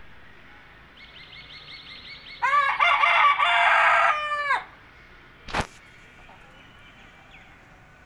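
Rooster crowing once: a long cock-a-doodle-doo that starts faintly about a second in, turns loud about two and a half seconds in, and drops away about two seconds later. A single sharp click follows about a second after the crow.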